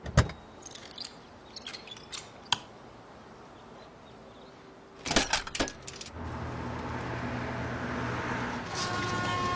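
A sharp thud, then light clicks and a jangle of keys. About five seconds in comes a quick run of knocks and clunks as gear is loaded into the Ford Everest SUV's cargo area. From about six seconds the SUV's steady driving noise follows, with a few steady tones joining near the end.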